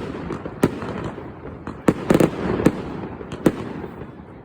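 Fireworks bursting overhead: sharp bangs about every half second to second, with a quick cluster of cracks about two seconds in, and a rumbling echo between them.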